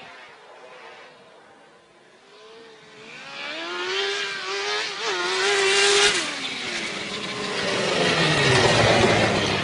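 Suzuki GSX-R1000's inline-four engine on a motorcycle converted to a snowmobile, revving hard. It grows loud from about three seconds in, holds a high, steady pitch, then its pitch falls.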